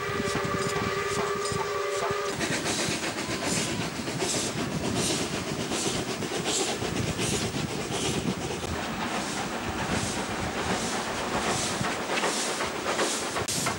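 A steam whistle sounds as a steady chord and cuts off about two seconds in. Then the LNER A3 steam locomotive Flying Scotsman works along with regular exhaust beats, about two a second, and steam hisses.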